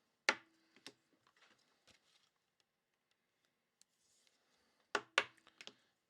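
Two pairs of sharp knocks from small hard objects being handled and set down on a desk, about four and a half seconds apart, the first knock of each pair followed by a brief low ring.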